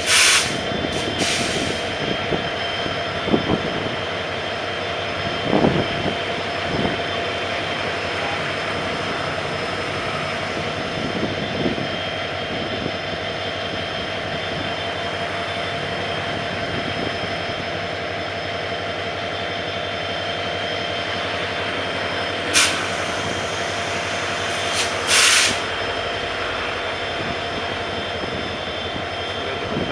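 CC 205 diesel locomotive engine running steadily with a constant mechanical hum and whine, with brief hisses near the start and twice near the end.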